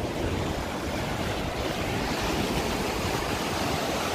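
Sea surf washing against a rocky shore, with wind buffeting the microphone: a steady rush of noise with a heavy low rumble.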